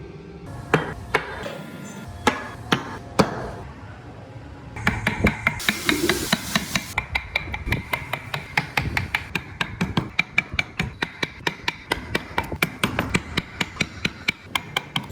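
Hand tools striking wood in carving: a few separate hard blows, then from about five seconds in a fast, even run of light taps, about six a second, typical of a chisel driven by a mallet.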